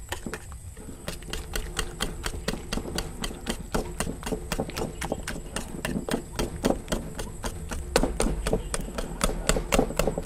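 Wire whisk beating egg yolks and flour into a batter in a glass bowl, the wires clicking against the glass in a fast, even rhythm of about five strokes a second that grows a little louder toward the end.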